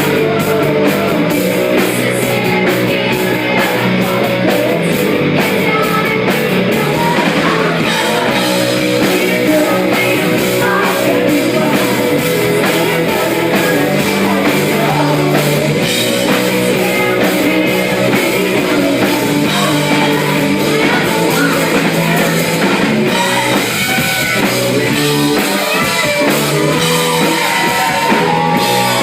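Live rock band playing a song at a steady, loud level: guitars and drum kit, with a woman singing.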